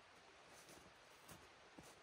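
Near silence, with a few faint crackles and soft knocks as a person moves about in snow and handles a birch log.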